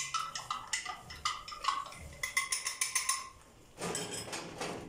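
A spoon clinking repeatedly against a glass, stirring cornstarch into water to make a slurry. The clinks are quick and ringing, then give way to a brief rushing noise near the end.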